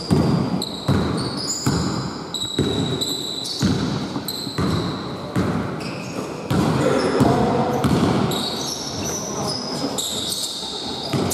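Basketball bouncing on a wooden gym floor about once a second, with short high-pitched sneaker squeaks on the court.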